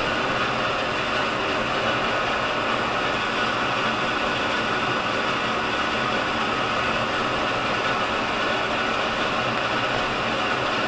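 An electrical appliance's motor running steadily: a constant hum with a hiss over it, level throughout.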